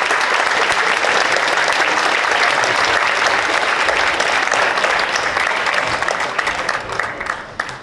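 Theatre audience applauding, a dense steady clapping that starts to die away near the end.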